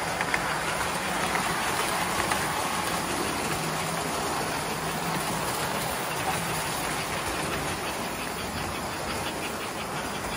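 Several tinplate model trains running on three-rail track: a steady whir and rumble of wheels and motors with light clicking over the rail joints and a low steady hum underneath.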